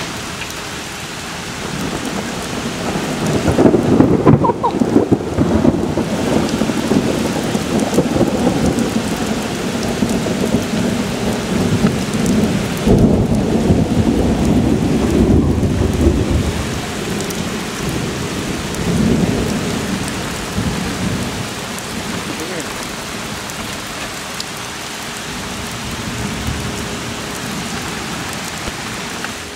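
Steady heavy rain with rolling thunder from a lightning strike. The rumble builds about three seconds in, swells again around the middle and dies away.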